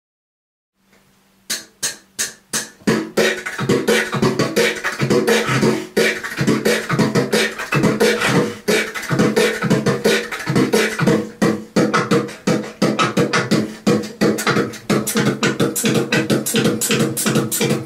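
Human beatboxing, two performers together: a low held hum sets in about a second in, then sparse hits build by about three seconds into a fast, steady electro-style beat with held bass-like tones underneath.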